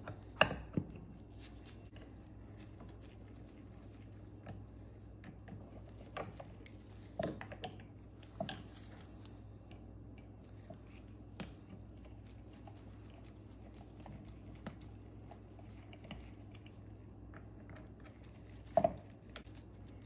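Scattered clicks and knocks of the trolling motor's housing parts and through-bolts being handled and fitted, with a nut driver clinking on the bolt heads; the sharpest knocks come about half a second in and near the end. A faint low hum runs underneath.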